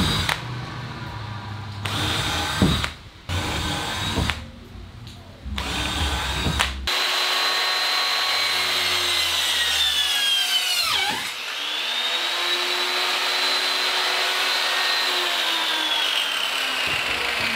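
Cordless drill boring pilot holes through a plywood sheet in short runs. About seven seconds in, this gives way to a circular saw cutting through the plywood with a steady high whine. The whine dips sharply partway through the cut, picks back up, and then slowly sinks lower.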